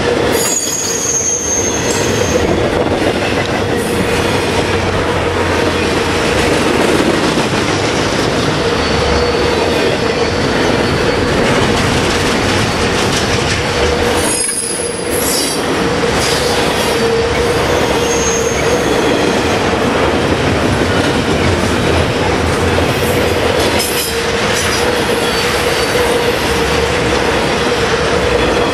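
Double-stack intermodal container well cars rolling past close by: a loud, steady rumble of steel wheels on rail with a constant hum. Short high-pitched wheel squeals come about a second in and again around eighteen seconds in.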